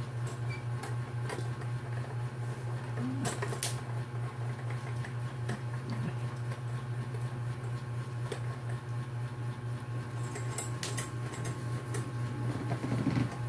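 Light clicks and taps from the metal armrest stand and its wing-nut clamp being handled, over a steady low hum.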